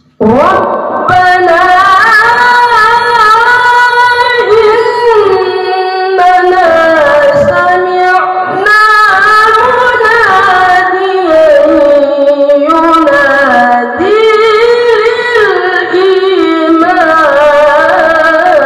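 A boy qari reciting the Quran (tilawah) in a high, melodic chant, holding long ornamented notes whose pitch wavers and trills, amplified through a microphone. The voice breaks off briefly a few times between phrases.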